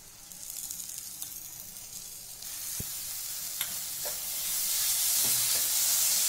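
Grated carrot and sugar mixture frying in ghee in a nonstick pan, sizzling as grated paneer goes in and a wooden spatula stirs it. The hiss grows louder from about halfway through, with a few scrapes and taps of the spatula against the pan.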